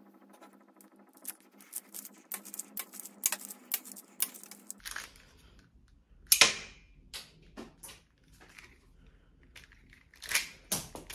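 Hand-built Lego brick pistol being worked: a quick run of small plastic clicks and rattles, then a few single sharp plastic snaps from its mechanism, the loudest about six seconds in and another near the end.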